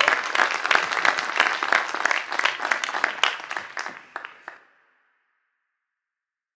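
Audience applauding, dense clapping that thins out and fades away about four and a half seconds in.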